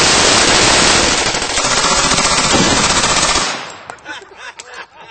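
Sustained automatic gunfire, a continuous rapid string of shots that stops about three and a half seconds in, followed by a few scattered sharp clicks.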